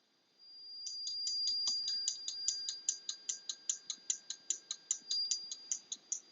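Homemade fire alarm panel in alarm, signalling in march-time pattern: even, rapid clicking at about four to five clicks a second over a steady high-pitched buzzer tone. The tone starts about half a second in and the clicking a second in.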